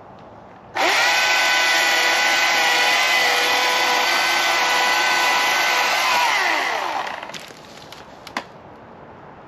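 Husqvarna 440 two-stroke chainsaw with a 20-inch bar, snapped up to full throttle about a second in and held at a steady high pitch for about five seconds. The throttle is then released and the engine winds down with falling pitch. A single sharp click comes near the end.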